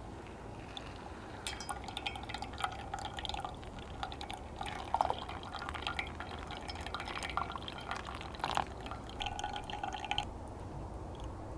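Brewed coffee dripping from a stainless-steel mesh pour-over filter into the vessel beneath: irregular small drips and plinks, starting after about a second and a half and stopping shortly before the end.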